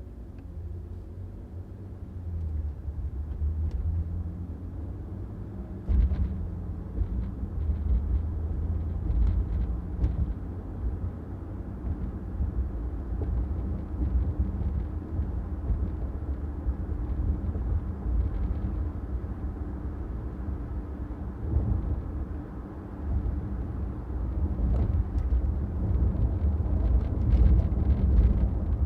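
Car driving, a steady low road and engine rumble that swells and eases with the traffic, with a sharp bump about six seconds in and a few faint ticks.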